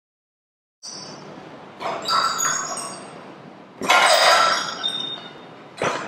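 Three punches landing on a heavy punching bag, about two seconds apart, each a loud smack followed by a brief metallic jingle.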